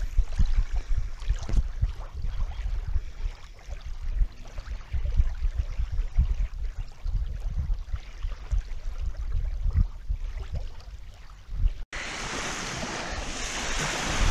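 Small lake waves lapping at a sandy shore, with wind buffeting the microphone in uneven gusts. About twelve seconds in the sound cuts to a steadier, hissing wash of small waves breaking on the beach.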